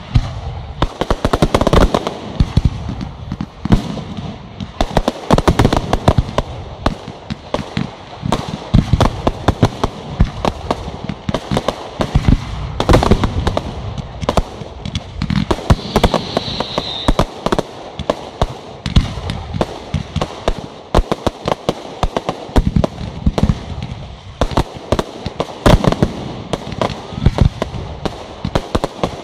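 Fireworks going off in rapid, continuous succession: dense bangs and crackling reports, with a short whistling tone about halfway through.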